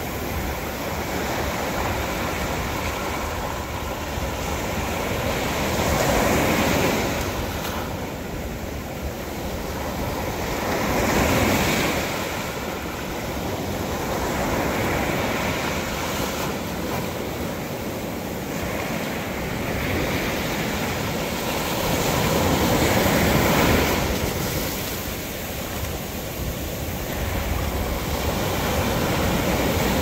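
Ocean surf breaking and washing up a sandy beach around dark rocks. The rush of water swells and eases every few seconds, with louder surges about six, eleven and twenty-three seconds in.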